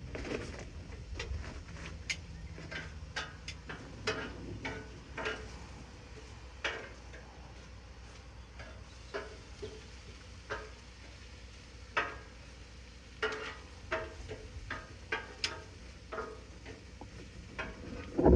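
Metal utensils clicking and tapping irregularly, about one or two light strikes a second, over a low steady hum.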